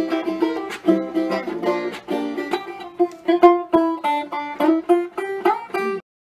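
Intro theme music played on plucked strings, a quick run of notes that stops abruptly near the end.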